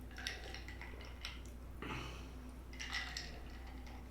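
Close-miked wet chewing and mouth sounds, coming in a few short crackly bursts.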